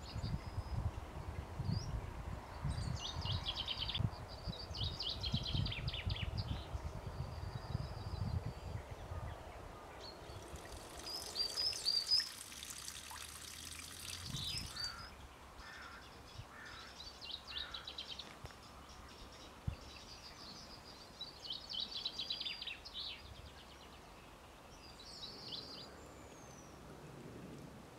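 Songbirds singing, with repeated short trilled and chirping phrases throughout. Low rumbling runs through the first third, and a few seconds of steady hiss come near the middle.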